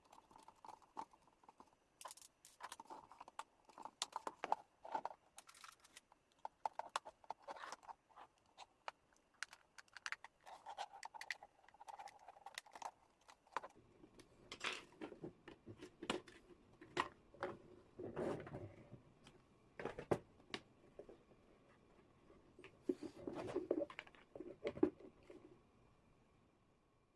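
Faint, irregular clicks, taps and scraping of an electric kettle being taken apart by hand, its parts handled and worked loose.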